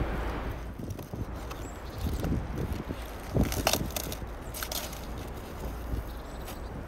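Knife cutting a cabbage head from its stalk, the crisp leaves and stem snapping and crunching in a few sharp cracks about three and a half seconds in, over a low wind rumble.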